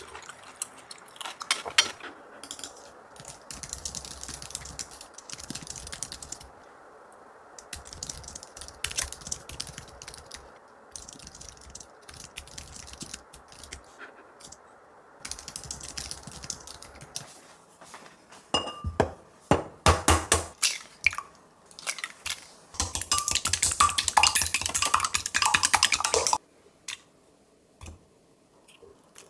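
Kitchen handling sounds: utensils and dishes clinking and knocking in quick irregular strikes, with louder stretches of dense clatter that stop abruptly near the end.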